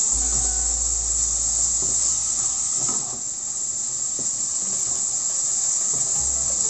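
Ground meat sizzling as it fries in a nonstick pan, a steady hiss, while it is turned over with a wooden spatula that scrapes against the pan a few times.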